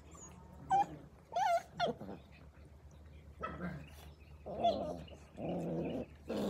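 Australian Cattle Dog (blue heeler) puppies whining and growling: three short, high yips in the first two seconds, then a few longer, lower growls in the second half.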